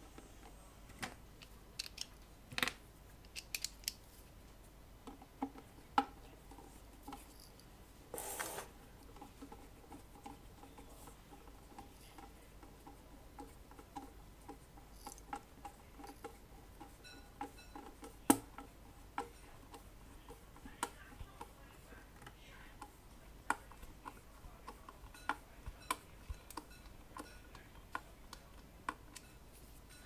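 Quiet bench handling sounds: scattered small clicks and taps as a metal bottom plate is fitted and bolted onto a tube amplifier's power-supply chassis, with a brief louder noise about eight seconds in.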